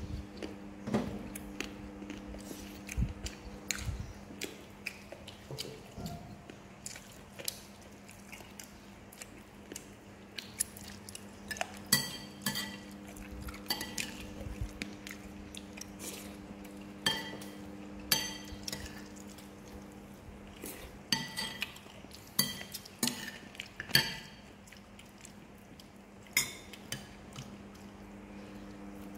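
Metal spoons clinking and scraping against ceramic soup bowls and plates, in scattered sharp taps that ring briefly, most of them in the second half. A steady low hum runs underneath.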